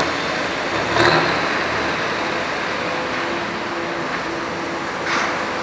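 The straight-piped Cummins diesel engine of an old FMC Link-Belt crawler crane running under load. It surges briefly about a second in and again near the end.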